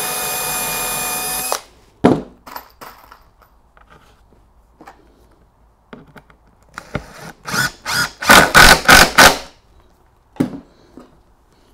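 Cordless drill running at a steady speed with an even whine for about two seconds, boring a pilot hole through a pine stair tread into its support block. A few sharp knocks follow. Near the end the drill works the wood in a run of short, loud bursts.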